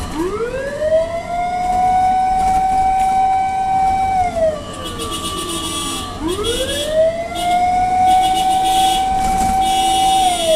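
Fire truck siren sounding in wail mode, heard from inside the truck's cab. Two slow cycles: the pitch rises and holds high for a few seconds, falls about four and a half seconds in, then climbs again about six seconds in and falls near the end.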